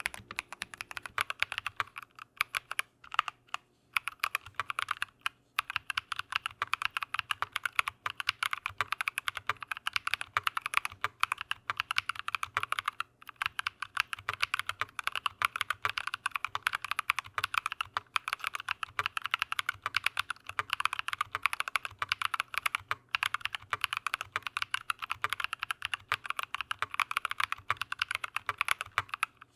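Fast, steady typing on a mechanical keyboard fitted with Drop + Invyr Holy Panda tactile switches, with a few short pauses between runs of keystrokes.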